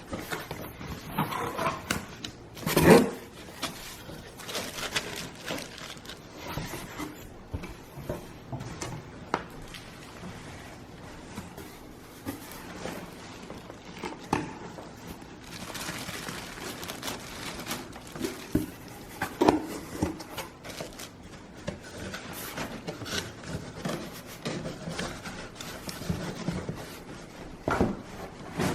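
Irregular scraping, rustling and knocking of a delivery box and its packaging being handled and opened, with one sharper knock about three seconds in.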